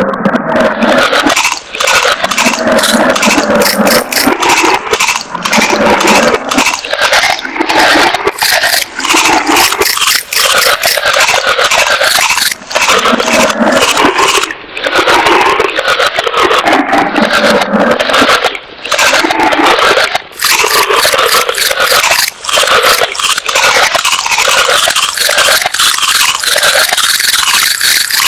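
An animal chewing crunchy food close to the microphone: continuous loud crunching and scraping, broken by short pauses every second or two.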